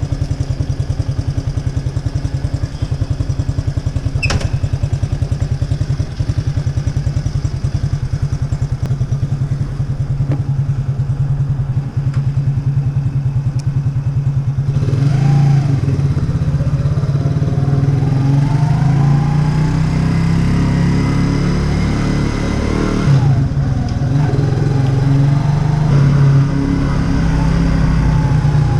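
Racer Alpha RC50 moped's engine idling with a steady pulse, then revving up about halfway through as the moped pulls away. The pitch climbs, dips once at a gear change, and climbs again. The engine is still being run in.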